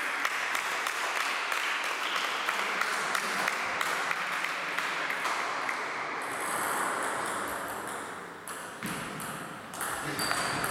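Table tennis balls clicking and bouncing in an echoing sports hall, many quick ticks over a steady hiss that dies away about eight seconds in. Separate sharp hits of a new rally start near the end.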